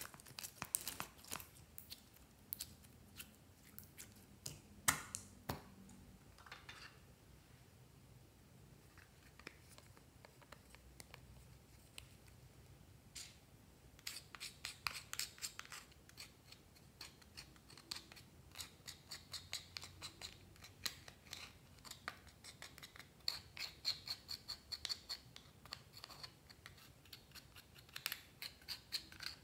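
A thin metal pick scratching and crumbling pressed eyeshadow out of the pans of a plastic palette, a dense run of fine scratches and clicks. Before that come a few scattered clicks of the plastic case being handled and a quieter stretch, and the scratching picks up about halfway.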